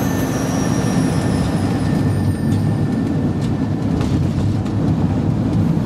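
Steady low rumble of a van's engine and tyres on wet asphalt, heard from inside the moving cab.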